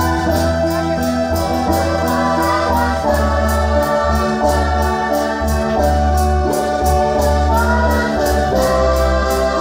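Electronic organ music with held chords, a bass line moving in steps and a steady quick beat.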